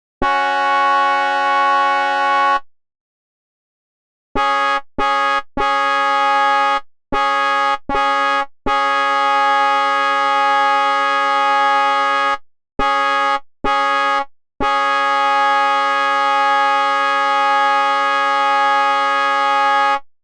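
Locomotive horn sounding a chord of steady tones: a blast of about two seconds, a short pause, then a run of short toots and longer blasts, ending in a long blast of about five seconds. Each blast starts and stops abruptly with no change in pitch.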